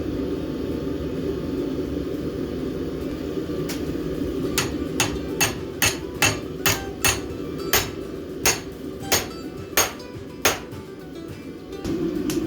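Hammer blows on a steel bar held in a vise, bending it into a hook: a run of sharp ringing strikes, about three a second, starting about four seconds in and stopping near ten seconds. A steady low rumble runs underneath.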